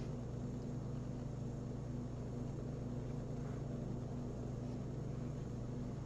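A steady low hum with no change in level.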